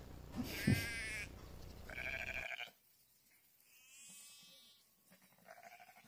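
A sheep bleating three times, the third call fainter: a ewe calling for her lamb, which is shut inside away from her.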